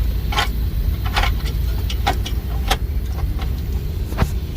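Scattered metallic clinks and knocks as a starter motor is worked loose and pulled out of its mounting, over a steady low rumble.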